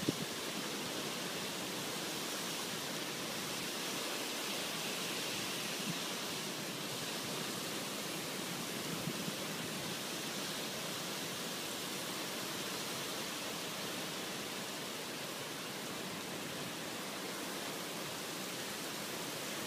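Heavy rain pouring down in a windy storm: a steady, dense hiss of the downpour, with a faint knock about six seconds in.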